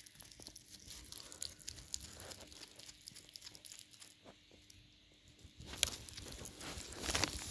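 Hedgehog nosing and feeding at broccoli pieces in a plastic tub on newspaper: faint, quick little clicks and crunches, with a louder rustling near the end.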